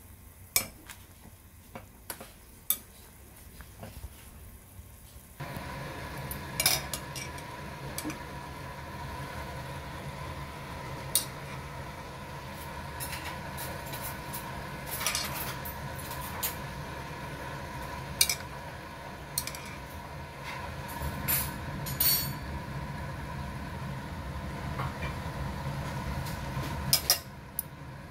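Metal chopsticks clicking and scraping against a cooking pot as instant ramen noodles are stirred and lifted in the broth. About five seconds in, a steady hiss of boiling broth starts abruptly and runs under the clicks.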